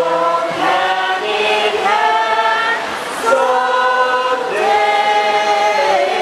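A large crowd singing a slow song together, unaccompanied, in long held notes that step from pitch to pitch.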